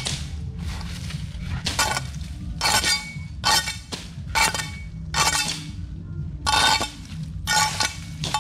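Camping gear being handled and set down: repeated sharp clanks and clinks, roughly one a second, some with a brief metallic ring, over a steady low rumble.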